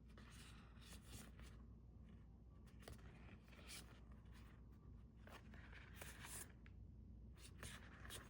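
Faint rustling of paper cards and packaging being handled, in a string of short scrapes with a few light clicks.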